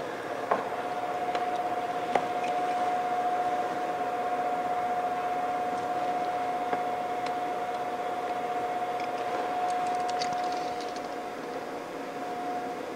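A motor-driven fan running steadily: a constant whine over an airy hiss, with two sharp clicks in the first few seconds and a faint crackle near the end.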